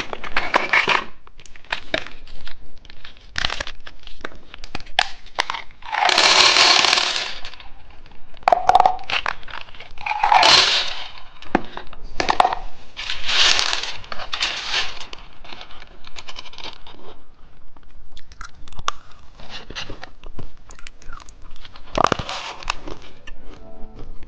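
Plastic candy wrappers being handled and torn open: crinkling and tearing rustles of a second or two, several times, amid scattered clicks and taps.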